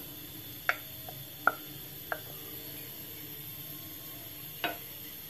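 A few short, sharp clinks of a glass bowl knocking against the rim of a clay handi as raw minced beef is tipped in: three in the first couple of seconds, then one more near the end.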